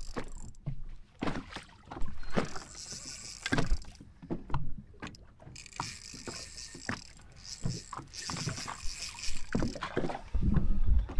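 Fishing reel and boat sounds while a large smallmouth bass is played beside the boat on a hard-bent rod: scattered knocks and clicks and water lapping at the hull. Two stretches of high, fine whirring come from the reel, one about two seconds in and a longer one from about five and a half seconds.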